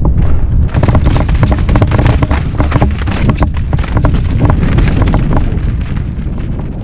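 Pivot Firebird mountain bike descending a rocky trail at speed: heavy wind buffeting on the camera microphone, with tyres crunching over rock and gravel and the bike rattling in quick clicks. The sound fades out near the end.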